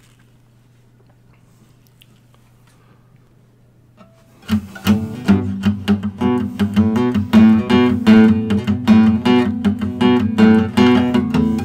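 A faint low hum, then about four and a half seconds in an acoustic guitar begins strumming in a steady rhythm and keeps on.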